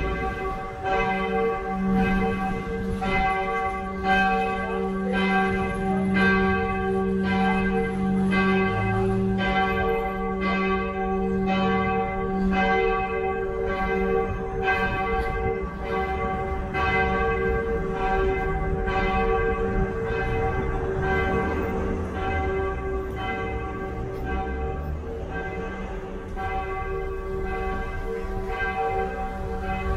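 Church bells pealing: several bells struck in a steady, unbroken run of about one and a half strokes a second, their tones ringing on between strokes.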